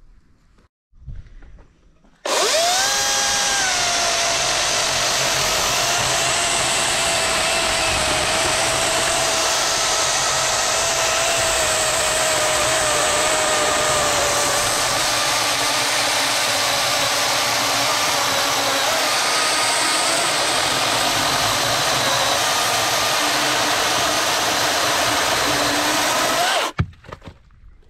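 DeWalt 60V FlexVolt 16-inch brushless battery chainsaw starting up about two seconds in and cutting through a fairly fresh oak log. Its motor whine drops in pitch as the chain bites, then holds steady under load for over twenty seconds before stopping suddenly near the end.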